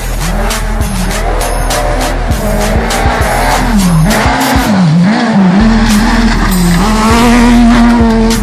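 Rally car engine at high revs on a gravel stage, its pitch repeatedly dropping and climbing back as the driver shifts and lifts off, then holding steady near the end, with short sharp cracks over it.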